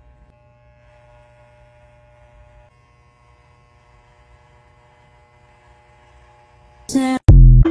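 Corded electric hair clipper buzzing steadily as it cuts hair close to the scalp. About seven seconds in, the short, much louder TikTok end-screen sound cuts in over it.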